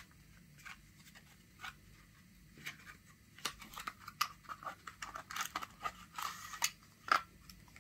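Cardboard and paper packaging handled in the hands: a scatter of small crackles, scrapes and crinkles as a black paper sleeve is worked open, growing busier about halfway through.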